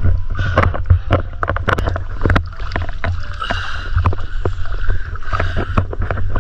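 Water splashing and sloshing in a shallow stream as a man wades chest-deep and works his hands through the water, with many sharp, irregular splashes over a steady low rumble.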